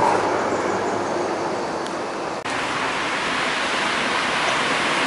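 Steady rushing noise of street traffic mixed with wind on the microphone, with a brief dip about halfway through.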